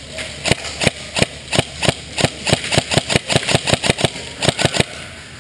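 Airsoft guns firing in quick succession: a rapid run of sharp cracks, about five or six a second, that stops shortly before the end.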